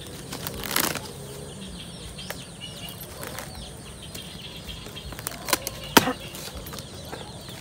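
Leaves and branches of a durian tree rustling, with a brief louder rustle about a second in and two sharp snaps near the end, the second the loudest. Faint high chirps sound behind.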